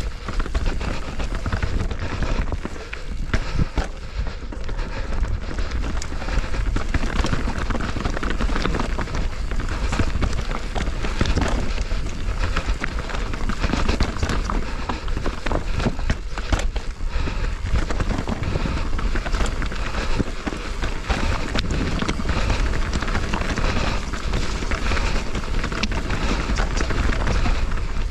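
Mountain bike riding fast down a dirt trail: wind buffeting the action-camera microphone, with a continuous rush of tyres on dirt and many small clicks and rattles from the bike over bumps.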